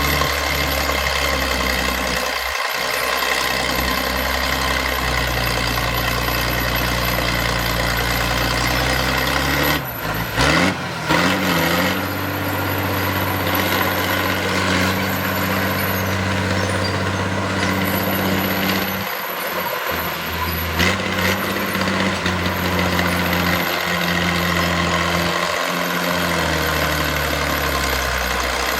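Heavy diesel engine of earth-moving machinery running steadily. Its note shifts about ten seconds in, with a few clunks, and changes again about two-thirds of the way through.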